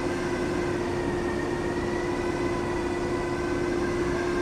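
Steady machine drone in a fiberglass spray-up shop, with a constant low hum and a few fainter higher tones, from the chopper-gun rig and its air-driven equipment.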